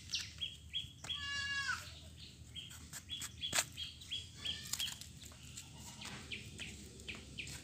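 A goat bleating once, a single call lasting about a second that starts about a second in, with short high chirps repeating in the background and a few sharp knocks.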